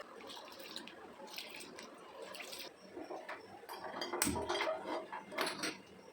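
Water splashing and dripping with irregular clatters, as something is handled in water at a sink, with one louder knock about four seconds in.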